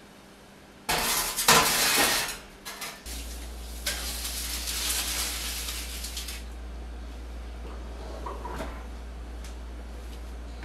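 Metal baking pans clattering and scraping on an oven rack as a cake pan and a pan of water are put into the oven, loudest in the first couple of seconds. A low steady hum comes on about three seconds in, and a couple of light knocks follow near the end.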